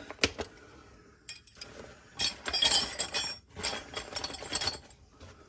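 Small metal Allen wrenches clinking and rattling as they are handled and taken out of their box. A single click comes just after the start, then a stretch of jangling from about two seconds in until nearly five seconds.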